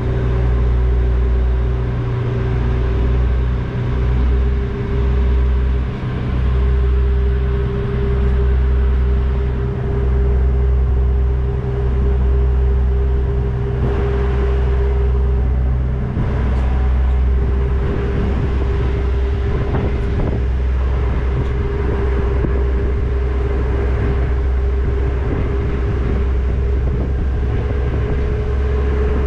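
Passenger ferry underway, its engines droning steadily with a constant hum over a deep rumble.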